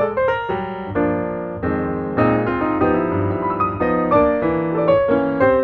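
Background piano music: struck notes and held chords.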